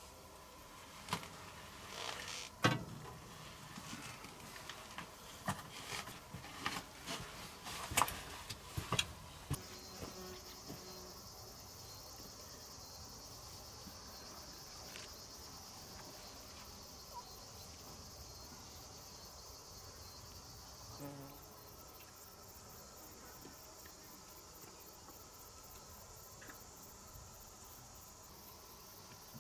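Scattered small clicks and knocks of things being handled, then a steady high-pitched insect chorus with a fast, even pulsing, typical of crickets in summer grassland, from about ten seconds in.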